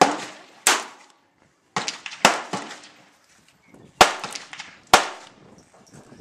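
Revolver being fired, about six shots spaced roughly a second apart, each a sharp crack with a short ring-out.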